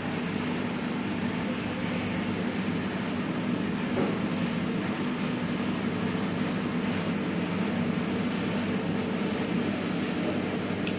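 Elgi rotary screw air compressor running steadily: a constant hum under an even rushing noise.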